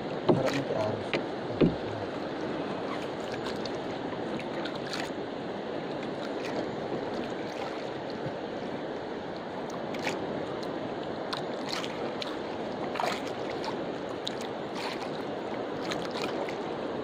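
Water lapping and sloshing against a small wooden outrigger canoe, a steady wash, with two sharp knocks on the hull in the first two seconds and scattered faint clicks while a handline is hauled in.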